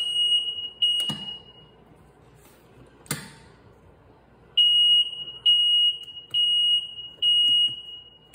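The electronic beeper on a Ryobi zero-turn mower's dash sounds a steady high-pitched beep in long tones of about a second each: two near the start, then four back to back from about four and a half seconds in. Two sharp clicks about one and three seconds in come from the dash push-buttons being pressed.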